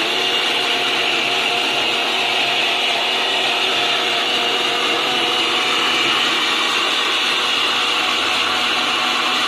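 Small Baltra electric mixer grinder running steadily at full speed, with a continuous motor whine over the rush of the blades, blending boiled carrot and water into a thin purée.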